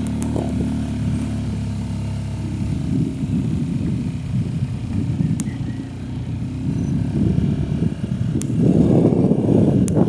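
Small motorcycle riding along a road: the engine runs steadily, with wind buffeting the microphone. The buffeting grows much louder about eight seconds in.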